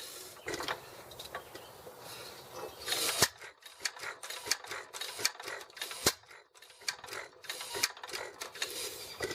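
Irregular mechanical clicks and knocks around an antique hit-and-miss farm engine that is not running steadily, with sharper knocks about three, six and eight seconds in.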